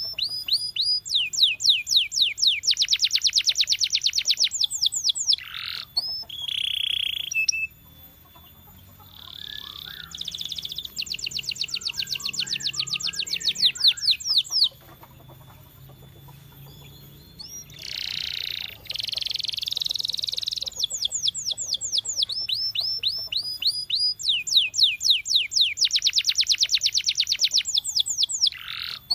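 Domestic canary singing in long phrases of fast trills, each a rapid run of repeated high sweeping notes, broken by a few short held whistles and two brief pauses.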